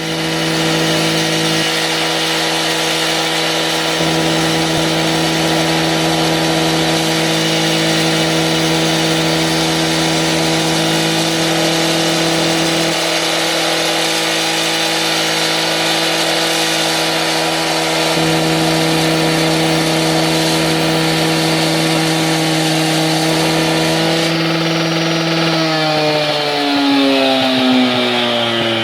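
Concrete-cutting power saw running steadily at high speed, then winding down with a falling pitch near the end.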